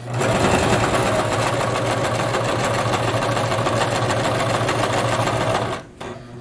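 Brother LS1520 electric sewing machine stitching through fabric: it starts at once, runs steadily at speed, and stops near the end.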